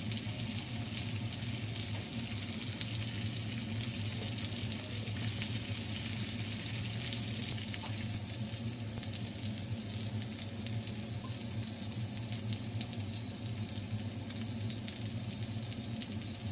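Squid, potatoes and corn sizzling in a hot sandwich maker pan on a gas stove: a steady sizzle with fine crackles, over a low steady hum.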